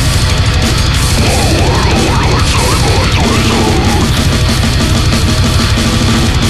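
Death metal recording: heavily distorted guitars and dense, pounding drums. From about a second in, higher notes bend and waver up and down over the top for a few seconds, likely lead guitar.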